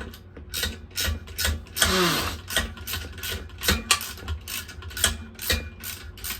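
Hand ratchet wrench clicking in short, irregular strokes, with metal tool clinks, as it works a stuck bolt on a mini bike engine that won't come out. About two seconds in there is a brief scrape.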